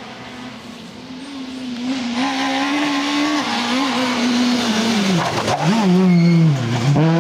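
Citroën C2 rally car's engine approaching at high revs: the note builds from about a second in and holds high. It drops sharply for a moment about five seconds in as the driver lifts off, then climbs again and is loudest as the car passes close by.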